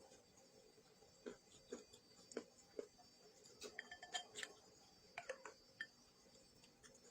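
Scattered soft clicks and light clinks of eating utensils against dishware, with a short run of small ringing clinks a little past halfway.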